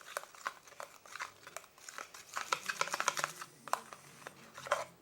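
Detergent and toothpaste being stirred together in a container: a utensil scraping and clicking irregularly through the sticky mixture, with wet squishing.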